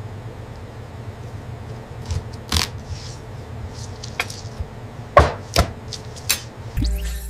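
Knife chopping on a cutting board: about six sharp strikes at uneven intervals, the loudest about five seconds in, over a steady low hum.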